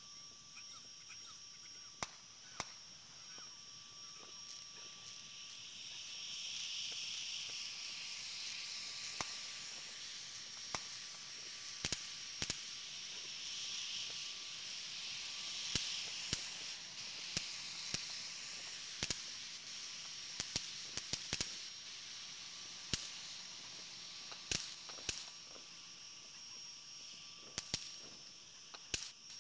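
Distant fireworks and firecrackers popping: a couple of dozen sharp cracks at irregular intervals, some in quick pairs, over a steady high-pitched hiss.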